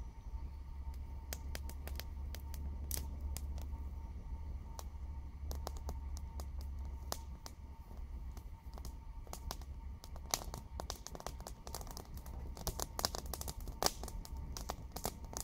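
Dry-grass tinder bundle crackling as it catches flame and burns in a twig fire lay, the crackles sparse at first and much denser after about ten seconds. A low rumble sits underneath in the first half.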